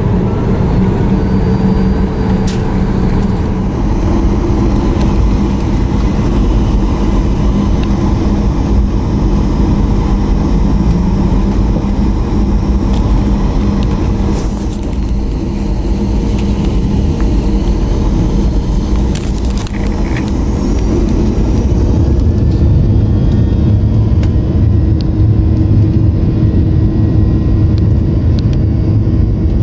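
Cabin noise of a Boeing 737-900ER on the ground: a steady rumble from its CFM56-7B engines and the wheels on the concrete, with a few short clicks and rattles. About three-quarters of the way through, the rumble deepens and grows louder as the engines spool up for the takeoff roll.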